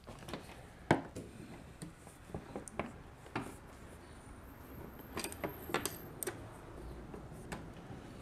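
Screwdriver working fasteners at a riding mower's steering column: scattered light metallic clicks and taps against the screws and plastic bodywork, a sharper click about a second in and a quick cluster of clicks around five to six seconds.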